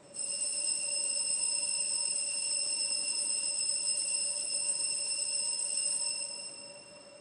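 Altar bells ringing steadily for about six seconds, starting suddenly and dying away near the end: the signal for the elevation of the consecrated host at Mass.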